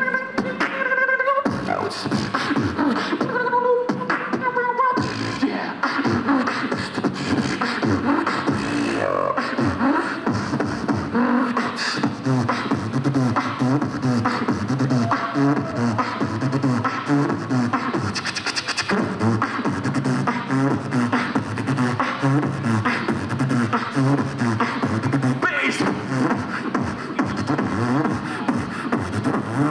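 Catwalk music at high volume: a pop dance track with a steady, heavy beat. Sung vocal phrases stand out in its first few seconds.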